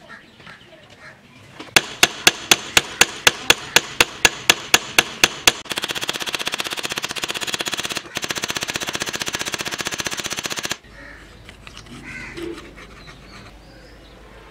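Small hammer tapping a pin into the wooden katana handle held in a vise: sharp, evenly spaced taps about four a second, then a much faster rattling run of taps that cuts off suddenly about eleven seconds in.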